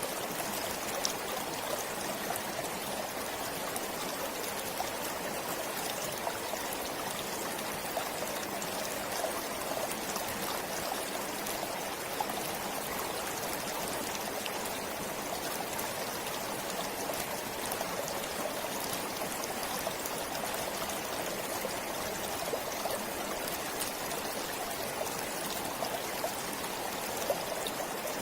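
Forest stream flowing steadily, a continuous rush of water with small splashes and trickles through it.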